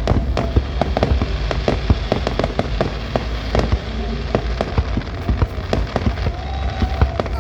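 Aerial fireworks display going off: a dense, irregular run of bangs and crackling reports over a continuous low rumble.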